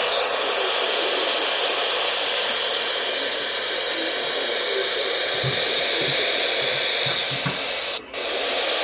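Weather radio receiver putting out a steady hiss of static, with a brief dropout near the end.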